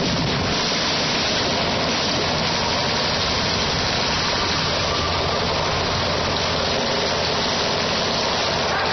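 Military vehicle engines idling under a constant rushing noise, with no shots or bangs.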